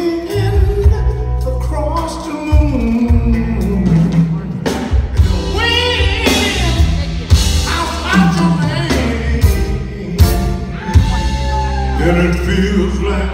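Live blues band playing: a man singing over electric guitar, bass and drums, recorded from the audience.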